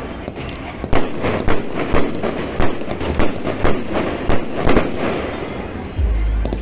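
Aerial fireworks going off: a rapid run of bangs and crackles, several reports a second, thinning out about five seconds in, with a low rumble near the end.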